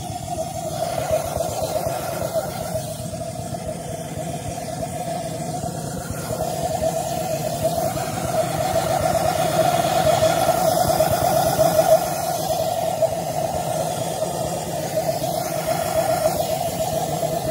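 Gluhareff propane pressure jet engine running hot and steady, a loud continuous buzzing roar held at one strong pitch with a hiss over it. It grows louder through the middle and settles back a little after about twelve seconds.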